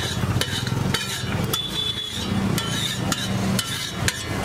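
Metal spatula clinking and scraping on a flat iron griddle (tawa), with repeated sharp strikes about two a second, over a steady low hum.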